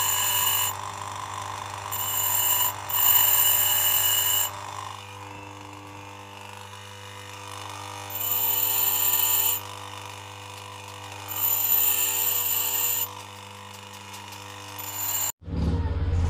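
Bench grinder motor running steadily while a steel tube is pressed against the spinning wheel in several bouts of one to two seconds, each contact giving a loud, high grinding screech. Near the end the sound cuts to a short low rumble.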